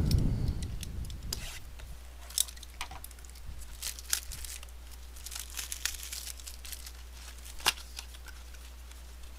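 Cardboard retail blaster box of baseball card packs being torn open and handled: scattered tearing and crinkling, with a few sharp snaps.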